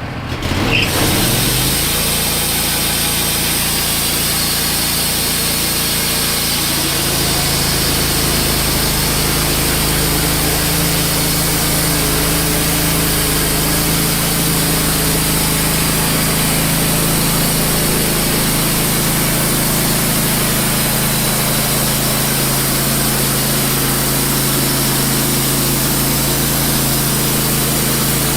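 Wood-Mizer LT15 portable bandsaw mill: its engine revs up from idle to full speed within the first second or two, then runs steadily as the band blade saws through a maple log, the tone shifting about seven seconds in.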